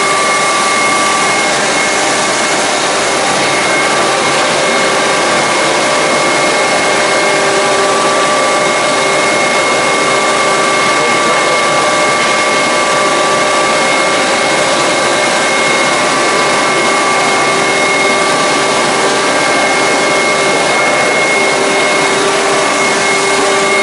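Hydraulic pump test rig running steadily: a loud, even machine noise with several steady whining tones over it.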